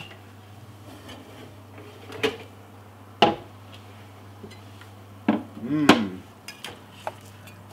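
An enamel casserole dish knocking and clunking as it is lifted off the oven shelf with oven gloves and set down, a few separate knocks with the loudest about six seconds in when it lands.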